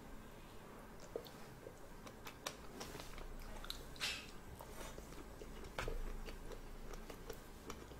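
Faint mouth sounds of a person biting and chewing whole cooked red shrimp, with scattered small clicks and crunches and a louder bite about four seconds in.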